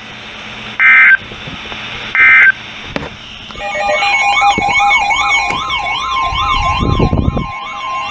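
Two short bursts of Emergency Alert System digital data tones about a second apart, the end of a three-burst SAME end-of-message signal. From about three and a half seconds in, several siren-like warbling alert tones sound together, each rising and falling about twice a second.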